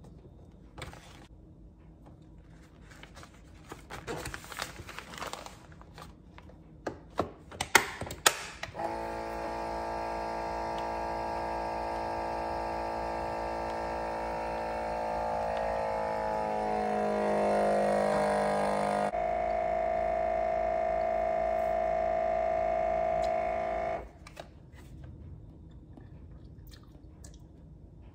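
Anova vacuum sealer's pump running for about ten seconds, its pitch dropping as the air is drawn out of the bag, then switching abruptly to a different steady tone for about five seconds before cutting off. Plastic bag rustling and a few clicks as the bag is fitted and the lid closed come before it.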